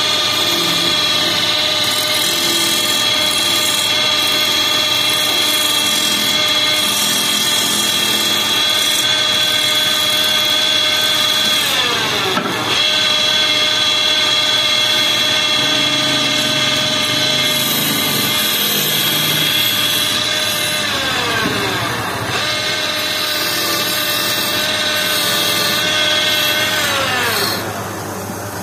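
Belt-driven wood lathe running with a steady high whine. Its pitch sags and recovers briefly about twelve seconds in, slides down and comes back up after about twenty seconds, and falls away as the lathe slows near the end.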